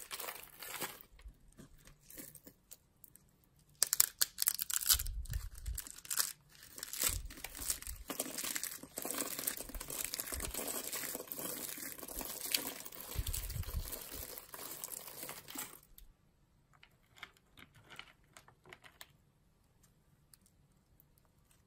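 Thin-cut pieces of dry bar soap crushed and crumbled between the fingers, a dense, crisp crackling that starts about four seconds in and thins to a few scattered cracks in the last few seconds.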